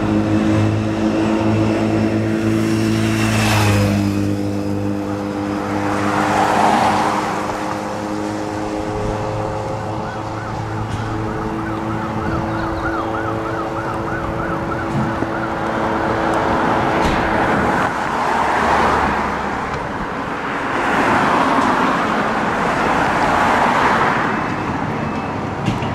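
Fire engines' diesel engines idling steadily, with a short hiss about three seconds in. A siren warbles quickly for several seconds in the middle, and passing traffic swells up and fades a few times.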